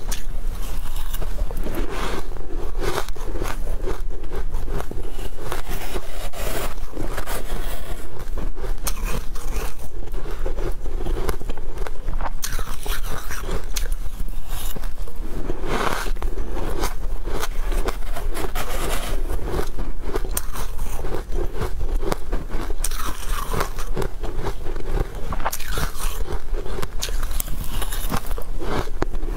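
Close-miked crunching of shaved ice as it is bitten and chewed by mouthful, with a spoon scraping through the ice; a dense, continuous crackle of small crunches.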